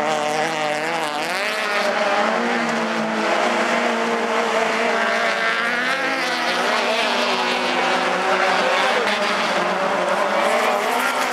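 Several racing car engines running hard together, their pitch rising and falling with throttle and gear changes as the pack races round the track.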